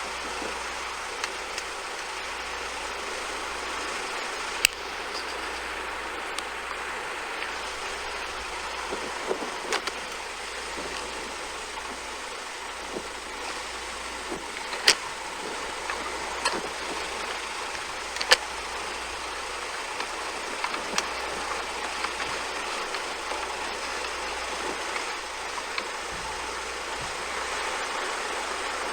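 Steady rushing roar of a tornado about half a mile off, mixed with wind, with a few sharp clicks and ticks scattered through it.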